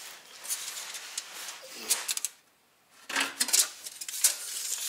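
Steel tape measure being pulled out and handled against a car's underbody: irregular clicking, rattling and scraping of the blade, with a short drop-out a little past halfway.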